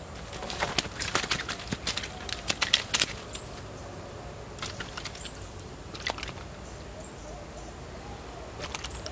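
A freshly hooked tilapia flapping on the line and being handled as it is unhooked: a quick run of sharp slaps and clicks for about three seconds, then a few scattered clicks.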